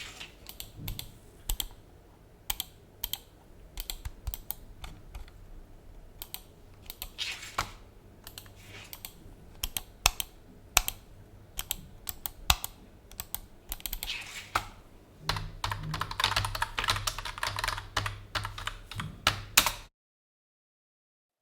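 Typing on a PC keyboard: irregular key clicks, running into a faster, denser stretch of typing toward the end, then stopping abruptly.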